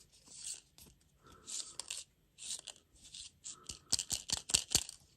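Plastic food packaging crinkling and tearing in short irregular bursts, with sharp clicks and crackles that cluster about four seconds in.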